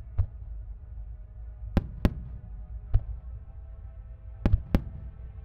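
Aerial fireworks bursting: six sharp, separate bangs, two of them in quick pairs, over a low steady rumble, with faint music underneath.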